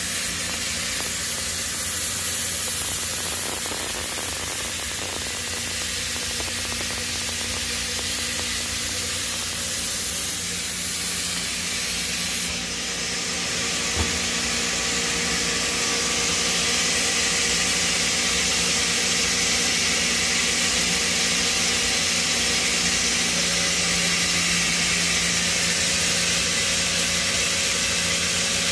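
Steady machine hum and hiss from a powered-up Mazak Integrex 100-IV ST CNC turn-mill lathe, with several steady tones. The sound drops sharply about twelve seconds in, and there is a single click soon after.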